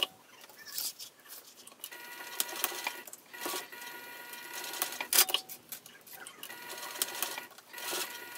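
Juki sewing machine stitching zipper tabs in short, quieter runs, broken by sharp clicks and rustling as the zipper and vinyl are repositioned under the presser foot.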